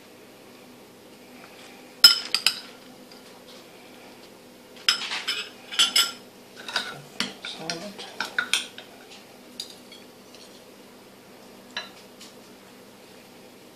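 Metal cutlery clinking and scraping against ceramic bowls and plates as food is served out: a few sharp clinks about two seconds in, a busy run of clinks from about five to nine seconds, and one more clink later.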